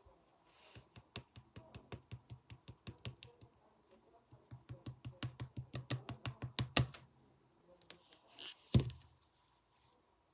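Keys being typed on a keyboard: two runs of quick, even clicks, about five a second, then a single louder knock near the end.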